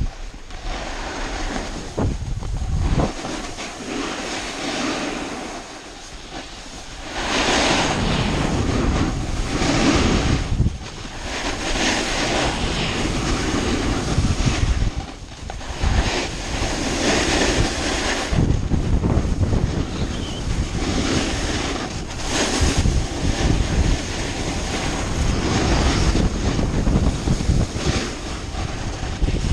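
Snowboard riding down a groomed run: the board's edges scraping and hissing over the snow, swelling and easing every few seconds with the turns, mixed with wind rushing over the camera's microphone.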